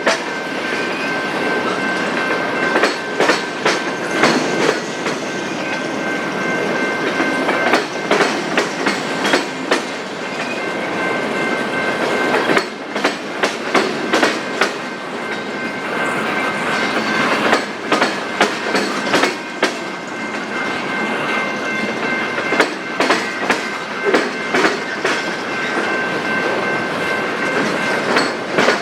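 Freight train cars rolling past, wheels clattering over rail joints in a steady clickety-clack, with a faint steady high ringing from the wheels and rails.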